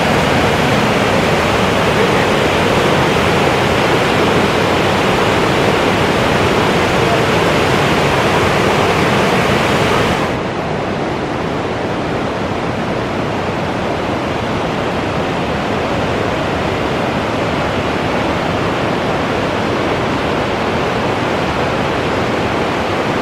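Whitewater rapids of the Seboeis River rushing steadily. About ten seconds in the sound drops a little and loses its hiss, then holds steady.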